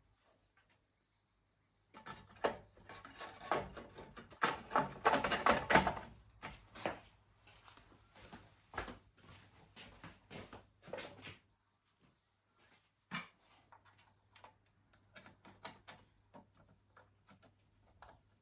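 Hands working on small mechanical parts: a string of clicks, knocks and rustling, densest and loudest from about two to seven seconds in, then scattered light ticks.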